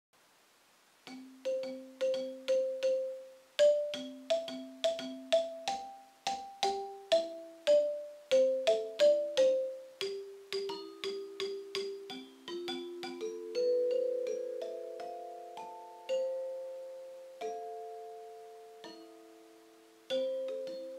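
Large metal-bar metallophone played with two mallets: a tune of struck notes, often two sounding together, each ringing on after the strike. The notes come quickly for the first half, then slow into long notes that ring over one another.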